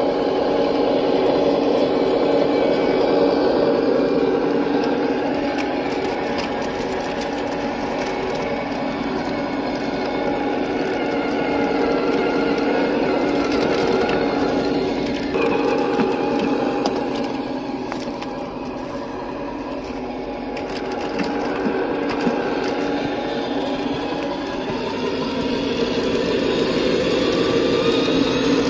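Simulated diesel truck engine from a GT Power multi-function sound unit in a Tamiya King Hauler RC truck, playing through its small speaker as the truck drives, its pitch rising and falling with the throttle. Underneath are the electric drivetrain and the tyres crunching over dry grass and dirt.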